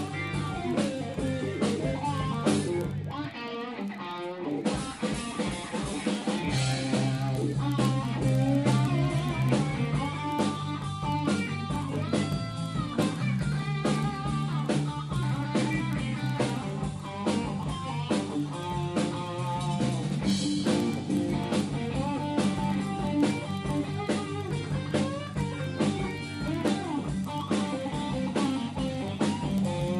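Live band playing an instrumental blues-rock passage: electric guitar lines with bends over bass and a steady drum-kit beat.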